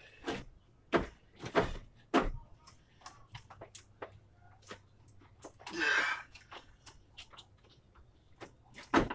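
Knocks and clunks of parts as a car's radiator cooling fan assembly is worked down into place in the engine bay: several sharp knocks in the first two seconds or so, a short scraping rush about six seconds in, and another knock near the end.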